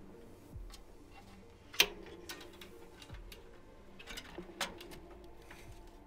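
Sharp clicks and light knocks as an ASUS ROG Strix graphics card is handled and lined up against the PC case's metal slot area for fitting. One loud click comes about two seconds in, and a quick run of lighter clicks follows a couple of seconds later.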